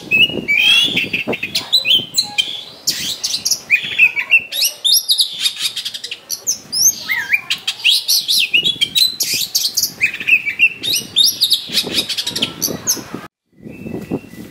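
Oriental magpie-robin singing a fast, varied song: whistled notes sliding up and down, mixed with harsh, rasping phrases. The song breaks off abruptly for a moment near the end.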